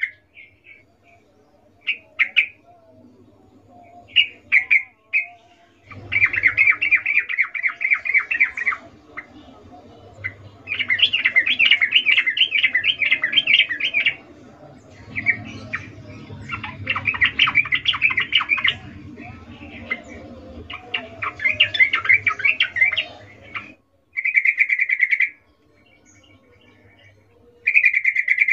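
Yellow-vented bulbul (trucukan) giving repeated bouts of rapid, chattering notes, each bout lasting one to three seconds with short pauses between. The uploader presents it as a female's mating call (ngecuplik), used as a lure to make males sing.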